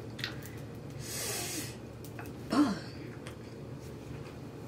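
A person breathing out noisily, about a second in, followed by a brief hum from the same person, over faint room tone.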